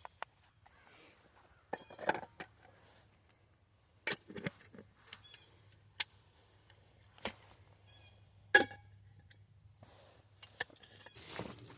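Irregular light clicks and knocks, one every second or two, from objects being handled, with a longer rustle starting near the end.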